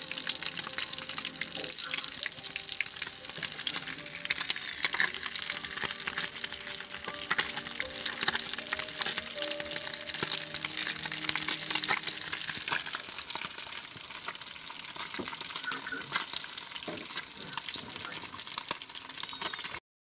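Tilapia frying in hot oil: a steady, crackling sizzle that cuts off abruptly near the end.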